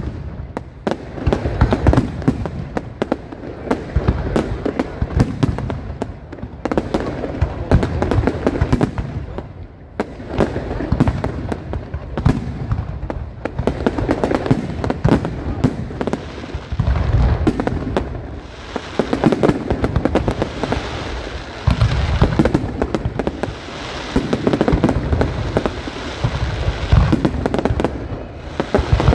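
Aerial fireworks display going off continuously: deep booms of shells bursting overlapped by dense rapid crackling, with a stretch of thick crackle and hiss in the second half.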